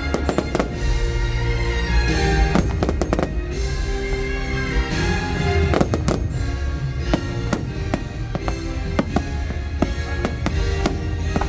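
Fireworks bursting in rapid volleys of sharp bangs, in clusters about a second in, around the middle, and through most of the second half. Under them the show's holiday music plays throughout.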